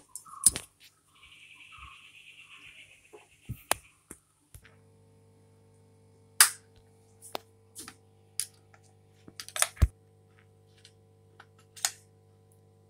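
A run of sharp plastic clicks and taps from wall switches being flicked and a neon tester screwdriver being pushed into a socket. A steady low electrical hum starts about four and a half seconds in.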